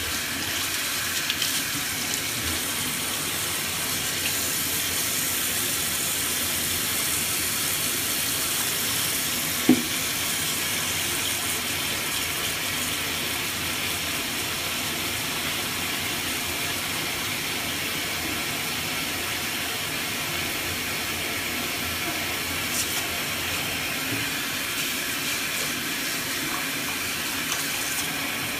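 Water running steadily from a tap into a sink while shoelaces are washed under it, with a single short knock about ten seconds in.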